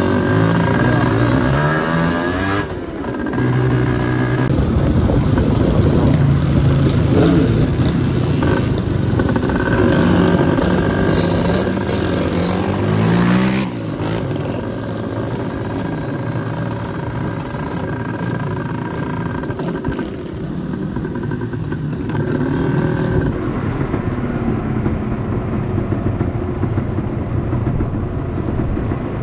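Yamaha DT trail motorcycle engines running on the move, rising in pitch as they rev and dropping back between gear changes. The sound changes abruptly twice, at about a third and again at about three-quarters of the way through.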